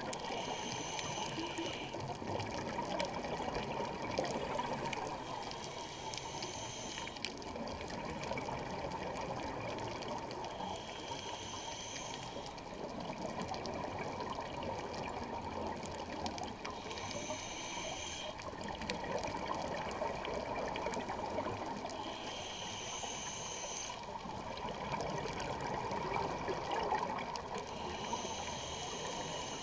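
Scuba diver breathing through a regulator, heard underwater through the camera housing: a steady muffled rush of water and bubbles, with a short higher hiss coming back about every five to six seconds with each breath.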